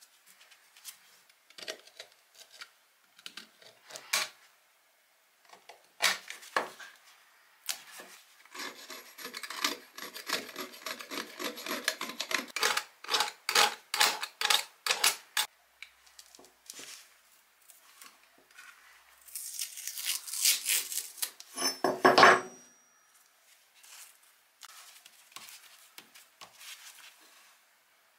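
Hand work on a wooden workbench: scattered taps and clicks as small pieces are handled and set down, then a run of quick, repeated scraping strokes for several seconds in the middle. A louder scrape comes about 22 seconds in, followed by quieter handling.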